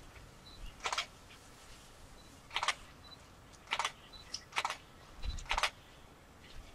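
Camera shutter firing five times over about five seconds, each a short, sharp click.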